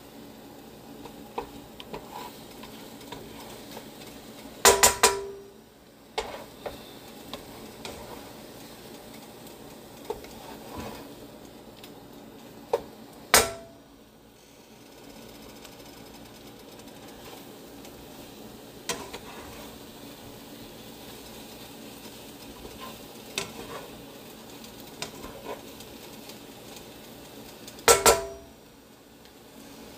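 A slotted spatula stirring and scraping scrambled eggs around a stainless-steel frying pan over a low, steady sizzle. Light clicks are scattered throughout. Three loud ringing clanks of the spatula against the pan come about five seconds in, near the middle and near the end.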